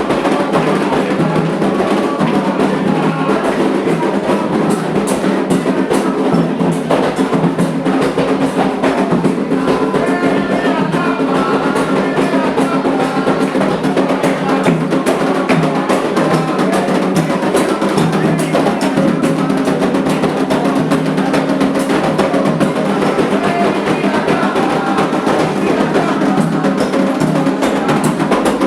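Candomblé ritual drumming: atabaque hand drums played in a dense, continuous rhythm with a sharp wood-block-like click running through it.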